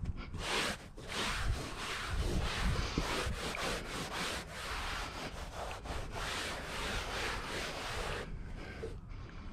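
Hands rubbing and smoothing four-way stretch carpet over a ply panel: a run of irregular brushing strokes that stops near the end.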